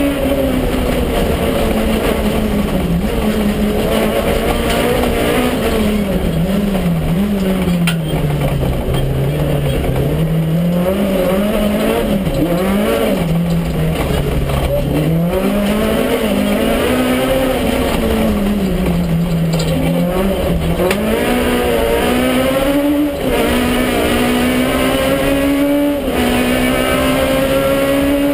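Citroën Saxo Kit Car's four-cylinder rally engine heard from inside the cabin at stage speed, its note swinging up and down with the throttle and gear changes: it sinks lowest about a third of the way in, then climbs again, with short breaks near the end as it shifts.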